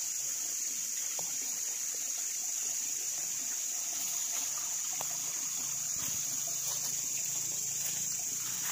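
Spring water trickling steadily under a constant high-pitched hiss, with a few faint clicks.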